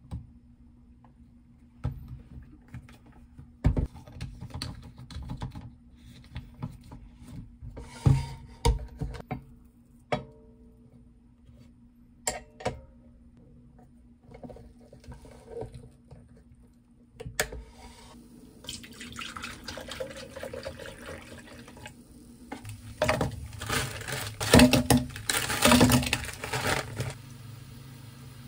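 Kitchen handling sounds: scattered clicks and knocks of utensils and a waffle maker over a low steady hum. In the last ten seconds or so, liquid is poured into a plastic blender jug over frozen strawberries, loudest near the end.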